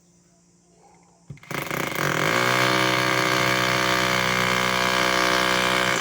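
Electric power tool switched on: its motor spins up over about a second, runs at a steady high speed for several seconds, then is released and winds down.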